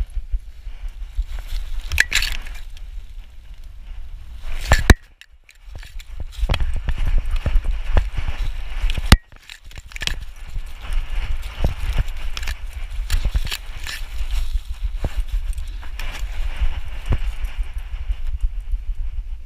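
Chest-mounted GoPro in its housing on a walking dog: low rumbling bumps as the camera swings on its stretchy elastic harness with each step, grass and dry stems rustling and brushing against it, and a few sharp knocks, loudest about five and nine seconds in.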